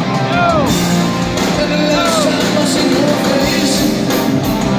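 Live rock music: a band playing loudly, with singing, and pitched notes that slide up and back down every second or so.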